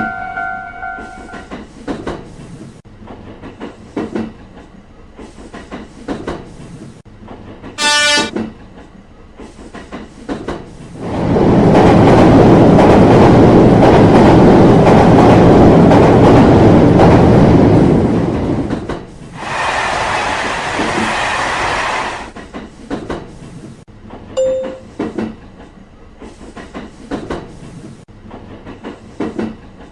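Passing-train sounds: a short horn blast about eight seconds in, then a loud rushing train pass lasting about seven seconds, followed by a quieter rush of a few seconds, with rail clicks throughout.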